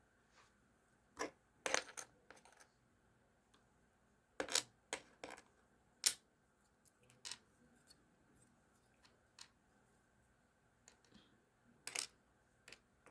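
Irregular small clicks and clinks of a ratcheting screwdriver's small metal parts being handled and fitted by hand, some in quick clusters, with the sharpest click about six seconds in.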